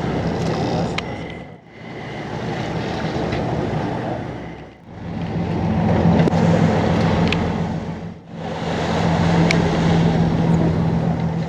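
Boat engine running with a steady low hum under wind and water noise. The sound dips away briefly about every three seconds.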